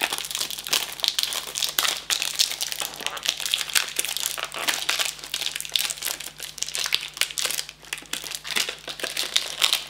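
Clear plastic wrap being peeled and crumpled off a small cardboard box by hand, a continuous run of sharp crinkles and crackles.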